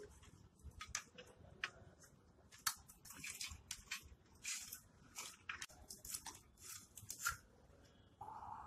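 Faint, irregular clicks, snaps and crinkles of wires and a circuit board being worked loose by hand from the neck of a CRT monitor's picture tube. A faint steady hiss starts near the end.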